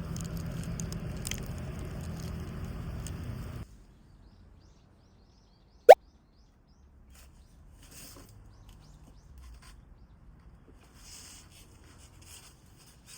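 A steady noisy background that cuts off suddenly, then one short, loud, rising pop about six seconds in, with faint scattered sounds after it.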